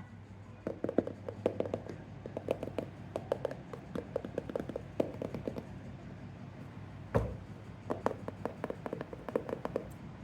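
Rapid irregular light taps and clicks from hands handling small hard objects, over a steady low hum, with one louder knock about seven seconds in.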